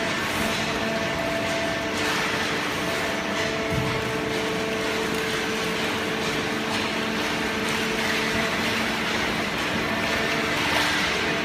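Hydraulic cardboard baler's electric motor and pump running with a steady hum, a few even tones over a whirring noise.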